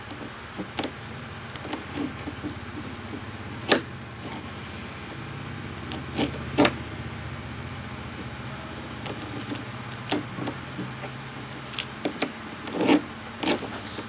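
Plastic clicks and clacks of a stickerless 3x3 Rubik's cube as its layers are twisted by hand, coming as irregular single snaps about a second or more apart, over a steady low hum.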